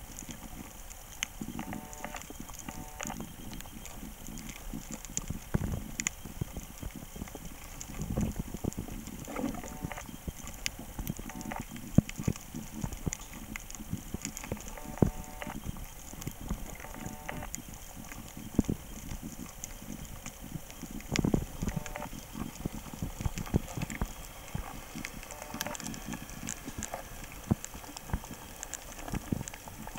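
Underwater sound picked up by a submerged camera: an irregular crackle of sharp clicks over low thuds and surges of moving water.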